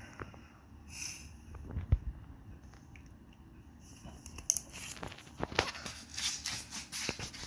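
Drawing strokes scratching on paper, coming in quick scratchy runs in the second half, with a single low knock on the desk about two seconds in.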